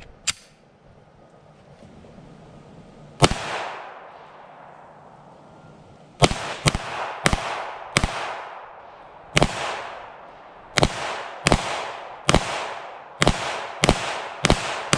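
Glock pistol fired from a Micro Conversion Kit carbine chassis: a single shot about three seconds in, then a string of about eleven shots at an uneven pace. Each shot is sharp and followed by a fading echo.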